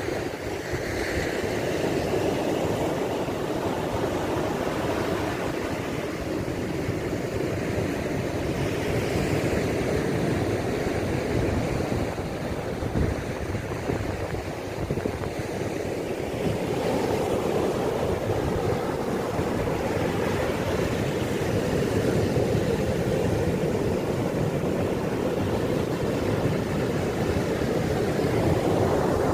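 Sea surf breaking on a sandy beach, a steady rushing wash mixed with wind buffeting the microphone, a little louder in the second half.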